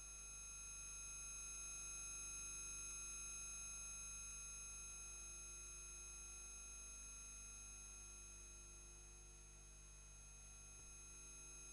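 Faint, steady electrical hum and whine made of several constant tones, low and high, with nothing else happening.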